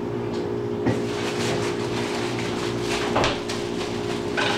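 A plastic bread bag rustling as it is handled, with a few short knocks about a second in, around three seconds in and near the end, over a steady low hum.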